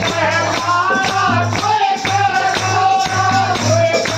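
Hindi devotional bhajan song: a singing voice over a steady drum beat with regular percussion hits.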